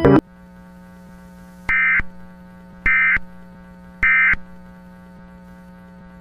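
Three short bursts of Emergency Alert System SAME digital data, the end-of-message code that closes an EAS alert, each about a third of a second long and a little over a second apart, over a steady low hum.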